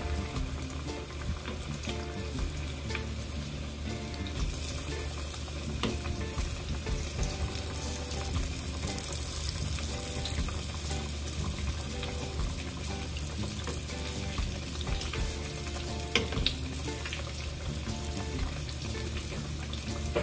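Breaded zucchini and eggplant slices frying in a pan of hot oil: a steady sizzle with a few sharp pops.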